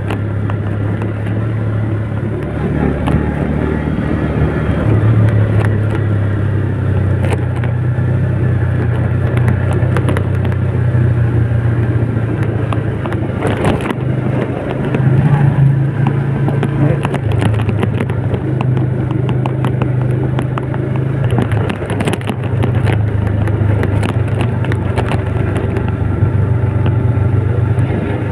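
An old Yamaha Vega's small four-stroke engine running steadily while the bike is ridden along a road, its note rising briefly about halfway through.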